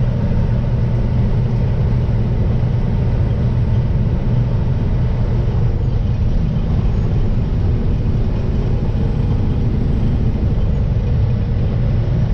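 Steady drone of a semi truck's diesel engine and tyre and road noise, heard inside the cab while cruising at constant speed on the highway.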